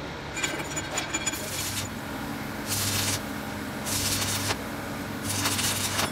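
A wire brush scratching over a gear tooth, then a stick (arc) welder striking and crackling in three short bursts of about half a second each, with a low electrical hum under each burst as the rod builds up a broken cast-iron gear tooth.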